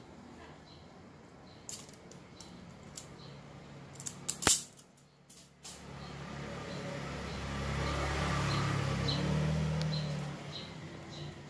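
Small clicks and handling noises of hands splicing motorcycle wiring, with one sharp snap about four and a half seconds in. Over the second half a low rumble swells and then fades.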